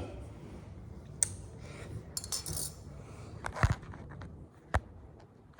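Cutlery clinking and scraping against a dish: a few separate sharp clinks and a short scrape.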